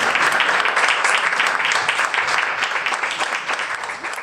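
Audience applauding, a dense patter of clapping that fades away near the end.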